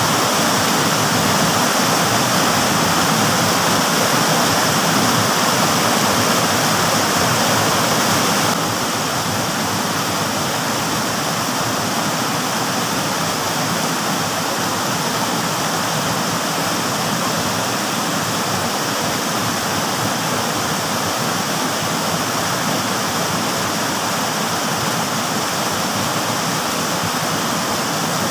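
Whitewater of a small stream cascade pouring over rocks: a steady rushing hiss, a little quieter from about eight seconds in.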